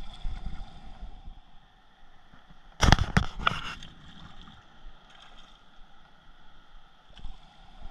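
Hooked smallmouth bass splashing at the water's surface, a quick run of several sharp splashes about three seconds in.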